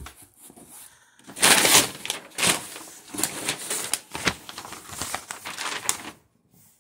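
Brown kraft packing paper crinkling and rustling as hands pull it out of a cardboard box, with small knocks of the cardboard. The loudest rustle comes about a second and a half in, and it stops shortly before the end.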